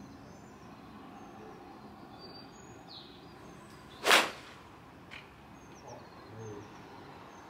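A golf club striking a ball off a driving-range mat in a full swing: one sharp, loud crack about four seconds in.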